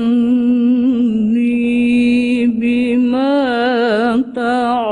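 A woman reciting the Quran in melodic tilawah style: one voice holding long, ornamented notes, with a wavering melismatic run in the middle and a brief break about four seconds in.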